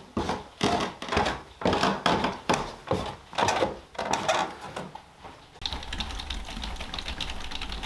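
A run of sharp knocks about two a second, then from about five and a half seconds in a steady rattling noise over a low rumble.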